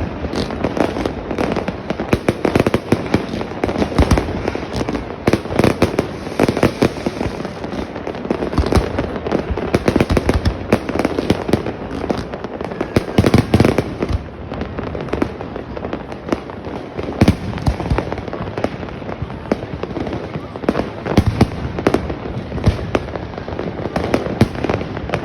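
New Year's Eve fireworks and firecrackers going off all around: a dense, unbroken barrage of bangs and cracks over continuous crackling.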